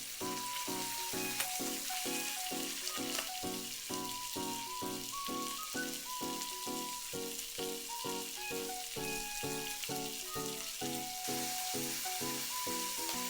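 Egg mixture sizzling as it fries in an oiled tamagoyaki pan, a steady fine hiss. Light background music with a regular beat and a simple melody plays along with it.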